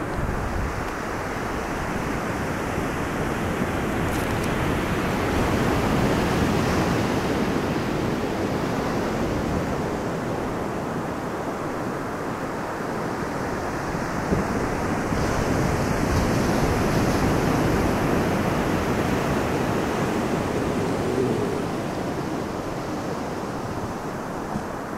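Ocean surf breaking and washing up the beach, a steady rush that swells and eases over several seconds, with some wind.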